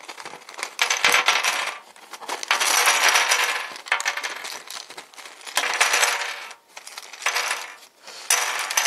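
Dozens of small 3D-printed nylon jigsaw pieces clattering as they are shaken out of a puzzle frame and spill onto a hard tabletop, in several bursts of rattling clicks.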